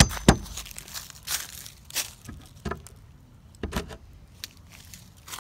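Claw hammer knocking nails into a wooden fence board: about six sharp, unevenly spaced knocks, the first two close together, with a short high ring at the first blows.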